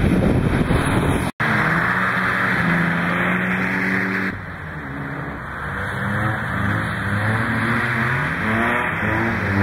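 BMW drift car's engine revving hard through a slide: the revs hold high, drop about four seconds in, then climb and fall again several times as the car drifts through the corner. It opens with a loud rush of wind noise, broken off by a cut about a second and a half in.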